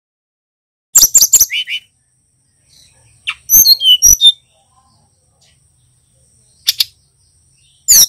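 Male sikatan rimba dada coklat (brown-chested jungle flycatcher), a bird still learning its song, singing in short bursts: sharp chirps about a second in, a quick run of whistled notes falling in pitch a little after three seconds, a single sharp call near seven seconds, and another burst of chirps at the end.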